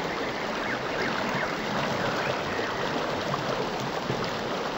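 Steady rushing of flowing water in a small river.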